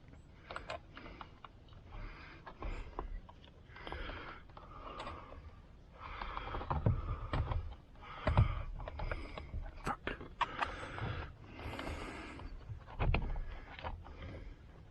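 Hand work on a steering wheel's airbag connectors and trim: irregular plastic clicks and knocks mixed with short rustling and scraping.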